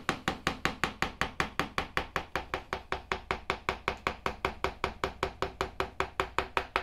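Round wooden carver's mallet striking the handle of a carving gouge in quick, even taps, about six a second, as the gouge lines in around the drawing on a block of lime wood.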